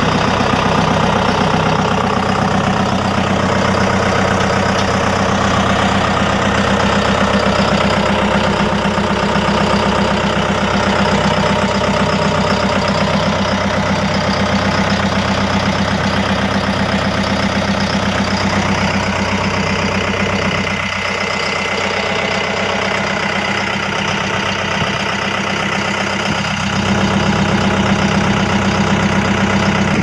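John Deere 5105M tractor's four-cylinder diesel engine idling steadily, a little quieter for a few seconds past the middle.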